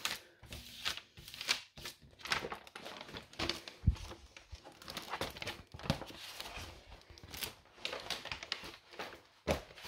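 Plastic film and paper sheet of a diamond-painting canvas crinkling and rustling in irregular bursts as they are handled and lifted, with one dull knock about four seconds in.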